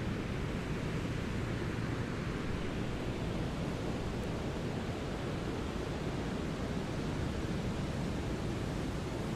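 Brown noise: a steady, deep rushing hiss, strongest in the low end and fading toward the highs, holding an even level throughout.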